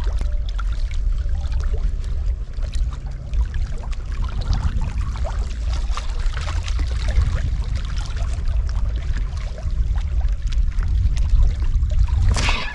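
Wind rumbling on the microphone with small waves lapping and trickling against shoreline rocks.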